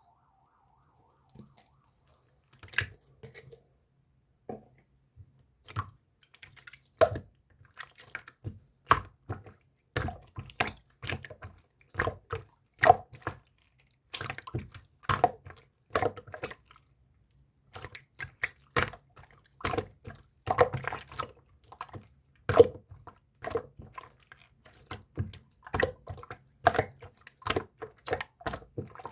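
Marbled slime being squeezed and poked by hand, giving a run of short wet clicks and pops, about one or two a second, with a brief pause partway through.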